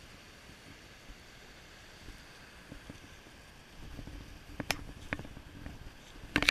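Footsteps and a few sharp knocks on the planks of a wooden footbridge, starting about four seconds in, with the loudest knocks near the end. Under them runs the steady rush of a small rocky creek.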